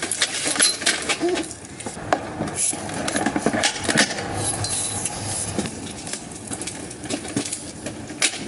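Plastic and metal clicks and knocks from a Britax stroller frame being handled as an infant car seat is lowered onto it and latched in. The sharpest click comes about four seconds in, as the seat locks onto the frame.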